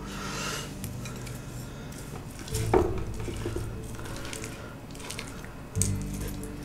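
Chopsticks scraping and tapping against a frying pan as a fried egg is pulled apart in it, with two sharper knocks of the chopsticks on the pan, one about three seconds in and one near the end.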